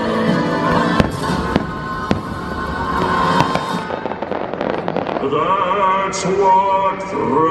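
Aerial fireworks bursting over the show's music soundtrack. Several sharp bangs come in the first half and a run of crackling about four seconds in, and near the end a sung melody comes to the front of the music.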